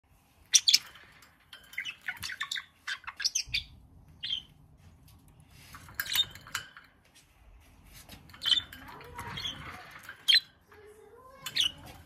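Budgerigar chirping and chattering: short runs of sharp, high chirps with pauses between them, the loudest near the start.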